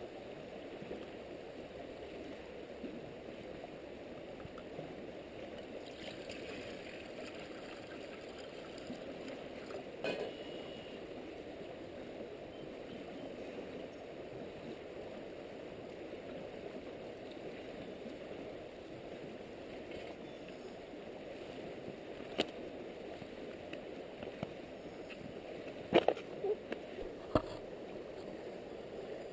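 Steady rushing of a flowing river, with a single sharp knock about 22 seconds in and a short cluster of sharp knocks near the end.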